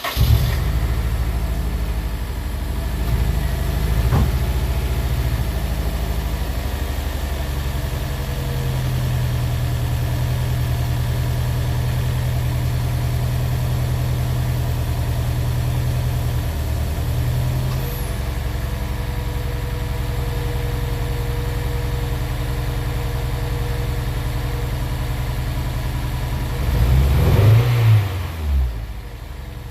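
Honda S2000's four-cylinder engine running just after start-up, idling with a misfire, then revved briefly twice near the end.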